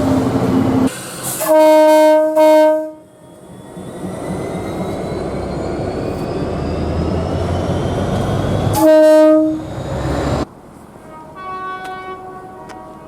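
Train horns: two short blasts, then a passing train's rumble builds and the horn sounds one loud blast before the sound cuts off abruptly. A fainter horn sounds several times near the end.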